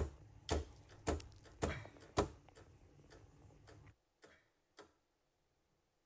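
Regular sharp clicking, about two clicks a second, over a faint low hum; the clicking stops a little over two seconds in and the hum cuts off about four seconds in.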